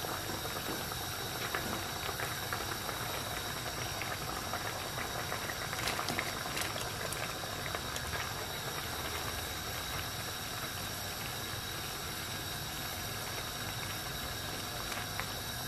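Thick coconut-milk rendang sauce bubbling steadily in a frying pan over high heat. A few soft knocks come around six seconds in, as pieces of boiled jengkol are tipped in and stirred with a wooden spatula.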